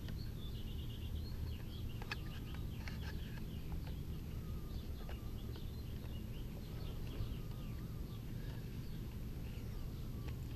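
Small birds chirping and twittering over a steady low background rumble, with a few faint clicks as a plastic torch body is handled and taped.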